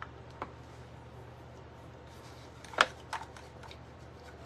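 A few light clicks and taps from items being handled on a worktable, the sharpest about three seconds in, over a faint steady low hum.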